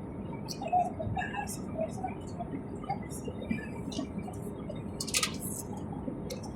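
Steady low background rumble with scattered small clicks and rustles, and a sharper rustle about five seconds in.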